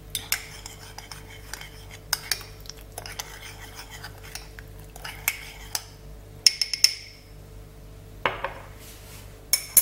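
A metal teaspoon stirring yeast into water in a small ceramic bowl, light scraping and clinking against the bowl, with a cluster of sharper ringing clinks about two-thirds of the way through. A few louder knocks near the end.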